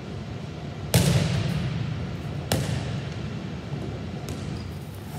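Two sharp impacts about a second and a half apart, the first the louder, each ringing out in the long echo of a large gym, with a fainter knock later, over a steady low hum.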